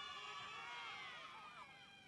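Crowd of spectators shouting and cheering, many high voices overlapping, easing off somewhat in the second half.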